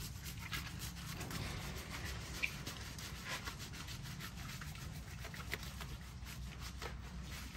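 Hands scrubbing soap lather into a wet, short-coated dog's fur: a continuous run of quick, soft rubbing strokes.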